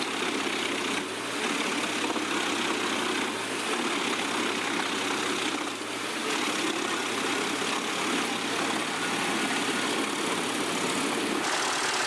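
Komptech Chippo 8010C mobile wood chipper running steadily, its engine and chipping drum making an even, unbroken machine noise. The sound shifts slightly near the end.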